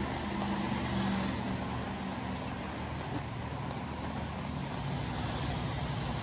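Car driving on a wet road, heard from inside the cabin: a steady low engine and drivetrain hum under a continuous hiss of tyres on the wet surface.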